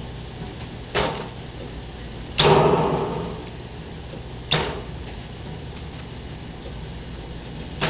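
Sharp mechanical clacks from a 1971 Williams Sniper Rifle electromechanical gun game being worked: four separate strikes, the second one followed by a ringing tail lasting about a second, over a steady hum from the powered-up machine.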